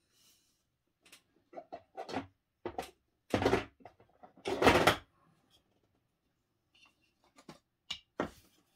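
Hard 3D-printed plastic terrain tiles clacking and clattering as they are picked out of a plastic storage bin and set into place, with two longer, louder rattles of pieces jostling together in the middle and scattered lighter clicks around them.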